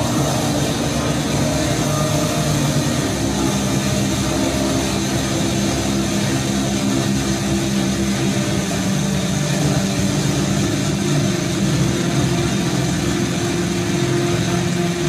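Live experimental noise music: a loud, unbroken wall of droning low tones under a dense hiss.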